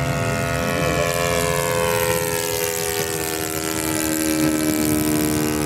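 Radio-controlled model plane's propeller engine running steadily as it flies past, its pitch sliding slowly down.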